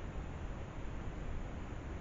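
Steady background hiss with a low rumble and no distinct event, picked up by a trail camera's microphone.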